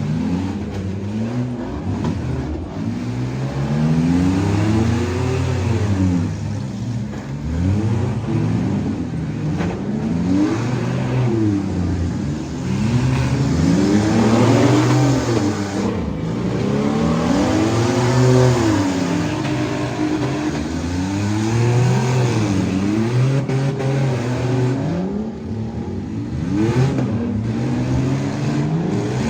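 Several demolition derby cars' engines revving hard, their pitch rising and falling every second or two as the cars accelerate, back up and ram one another.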